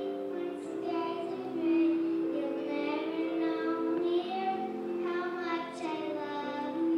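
A young girl singing into a handheld microphone, a melody with long held notes.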